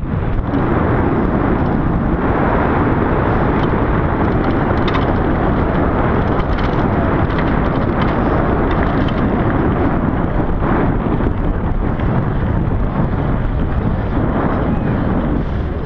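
Steady wind roar on the GoPro's microphone as a mountain bike is ridden fast over a dirt trail, with tyre noise and a few light clicks and rattles from the bike.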